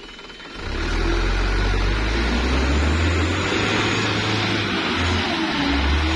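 Mitsubishi Canter dump truck's diesel engine revs up hard about half a second in and keeps running at high revs under heavy load, with wavering pitch, as the truck strains to climb a slippery mud slope.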